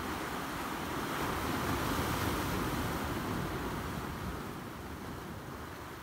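Sea waves breaking and washing over shoreline boulders: a steady rushing surf that swells about two seconds in and then slowly eases.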